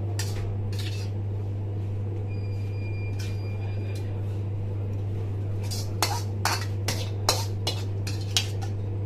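A metal spoon scraping and clinking against a metal wok as pasta is scooped out, with a run of sharp clinks in the second half. Under it runs a steady low hum.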